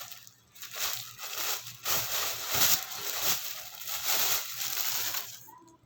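Packaging being handled and crinkled while a cap is unwrapped, in a run of irregular rustling and crumpling bursts that stop shortly before the end.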